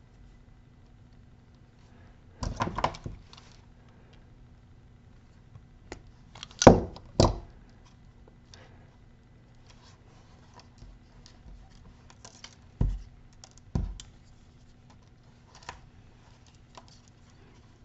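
Small clicks and knocks of wires, a plastic crimp connector and steel pliers being handled on a hard tabletop: a quick cluster of clicks about two and a half seconds in, two sharp knocks about seven seconds in, and two more around thirteen and fourteen seconds.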